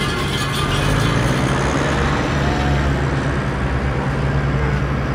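Tractor engine sound effect: a steady, low diesel-like engine rumble.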